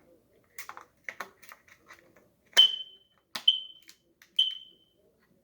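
Kidde i12040 smoke alarm's sounder giving three short high chirps, roughly a second apart, each starting with a sharp click and fading quickly, as the new battery is pressed down onto its spring contact pin and the alarm briefly powers up. Light plastic clicks and handling of the battery come before them.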